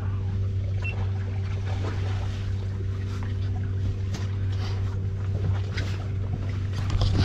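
Suzuki 350 outboard motor idling steadily, with a few light clicks and knocks scattered over it.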